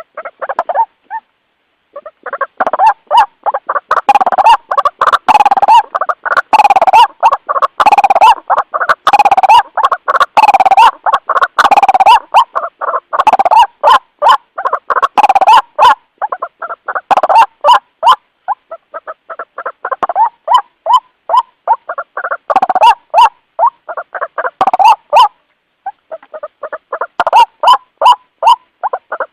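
White-breasted waterhen (ruak-ruak) calling its mates: long runs of rapidly repeated loud notes, broken by a short pause about a second in and another near the end. This is the call used as a lure to draw other waterhens in.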